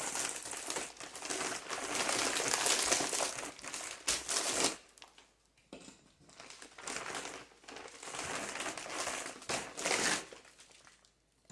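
Plastic bag of frozen chicken breasts crinkling as it is handled and reached into, in two stretches with a short pause a little before halfway.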